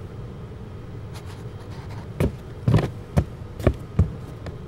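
Footsteps: five heavy steps about half a second apart, starting about two seconds in, over a steady low hum.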